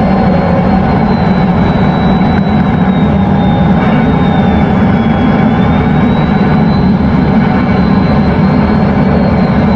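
F-16 fighter jet's engine running steadily at high power, heard from the cockpit: a dense, even rush with a thin high whine that dips slightly in pitch about midway and rises back.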